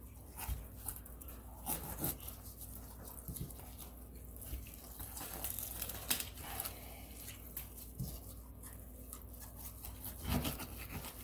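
Faint, irregular wet sounds of a knife scraping and cutting flesh away from the inside of a bass skin, with soft tearing as the meat is peeled back by hand.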